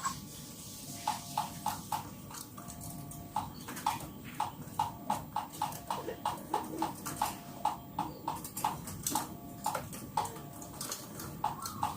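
Zebra dove (perkutut) singing a long run of short, clipped cooing notes, about two to three a second.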